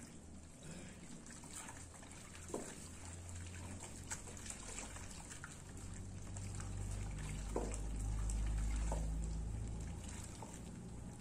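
Wooden paddle stirring a watery soap mixture of caustic soda, oil and alcohol in a large plastic basin, the liquid swishing and sloshing as it begins to thicken into a paste. A low rumble grows louder in the second half and fades again, with a few brief faint squeaks.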